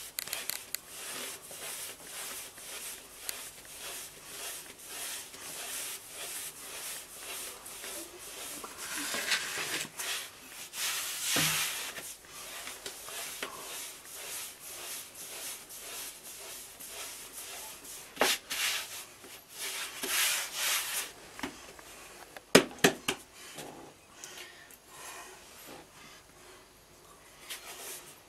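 Hands kneading bread dough on a floured wooden board: rhythmic rubbing and pressing strokes, about two a second. There are a few louder swishes, and a few sharp knocks about three-quarters of the way through.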